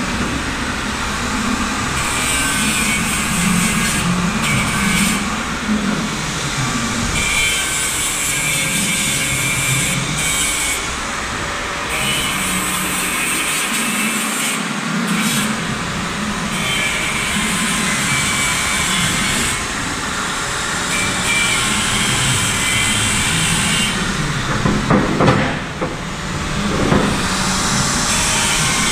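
Electric angle grinder grinding the corners off a 19 mm steel plate, the disc running continuously against the metal and changing in tone as it bites. There are a few short, louder knocks near the end.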